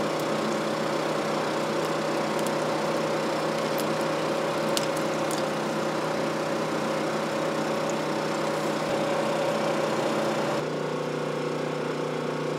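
Steady machine hum with a few faint clicks about four to five seconds in; the hum drops a little and sounds duller about ten seconds in.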